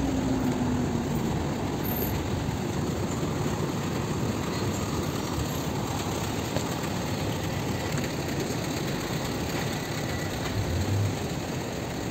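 Steady city street noise of vehicle traffic, heard while walking along a busy pavement.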